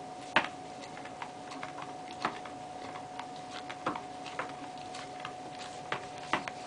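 Golden retriever chewing on the ears of a plush cat toy: irregular soft clicks of teeth and mouth, with a few louder ones every second or two.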